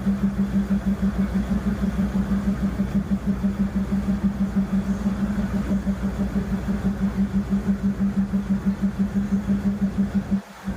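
Vehicle engine idling with a steady, fast, even throb, broken by a brief dropout near the end.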